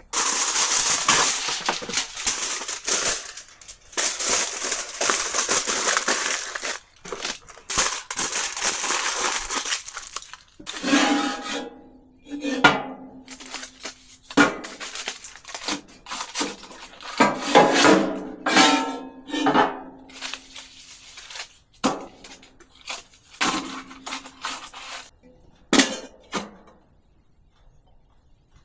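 Kitchen work with dishes and pots: a loud rushing noise for about the first ten seconds, then dishes and a pot clattering and clinking, some strikes ringing on briefly.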